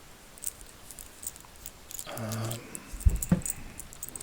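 Faint scattered small clicks and handling noises. About two seconds in there is a short hummed vocal sound, and just after three seconds come two soft thumps.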